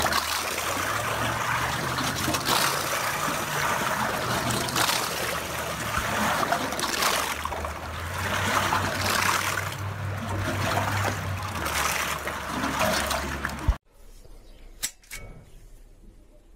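Steady hiss of rain falling on a wet boat dock and the water around it, with a low hum underneath. It cuts off about 14 s in, leaving quiet outdoor sound and one sharp click.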